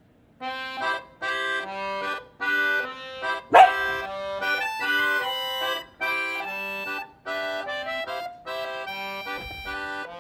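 Background music with an accordion-like melody played in short phrases, and one loud, sharp sound about three and a half seconds in.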